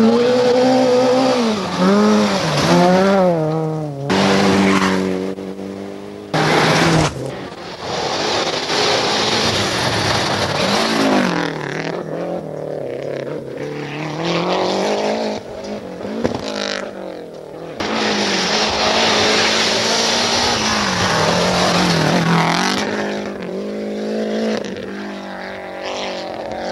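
Rally cars at speed on a dirt stage: engines rev up and down through gear changes as each car approaches and passes, over a hiss of tyres and gravel. The sound breaks off abruptly several times between passes.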